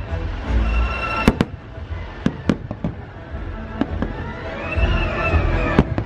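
Fireworks bursting, a series of sharp cracks and low booms at irregular intervals, over the show's orchestral soundtrack music.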